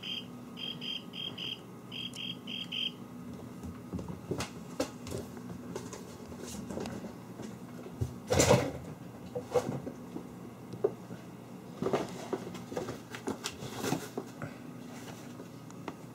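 Kittens playing on a wooden floor: scattered taps, scrapes and knocks of paws and batted objects, the loudest thump about eight seconds in. For the first three seconds a high chirping repeats in quick groups of two or three, over a low steady hum.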